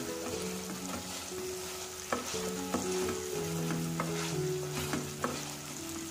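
Onion-tomato masala frying in oil in a steel pan, sizzling steadily while a metal spatula stirs it and scrapes the pan, with a few sharp clicks of metal on metal. Soft background music plays underneath.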